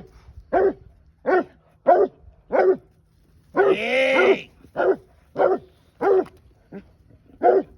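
A scenthound baying on a hare's trail: a steady run of short, deep barks about every two-thirds of a second, broken in the middle by one longer drawn-out bay.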